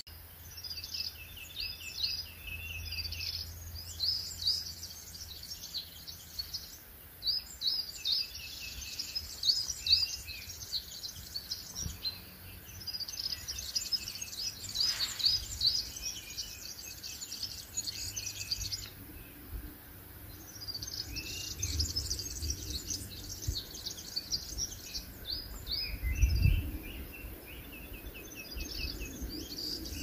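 Several small songbirds singing together, with quick high chirping phrases overlapping and short rapid trills repeating now and then. Near the end a low bump, such as wind or handling on the microphone, briefly stands out.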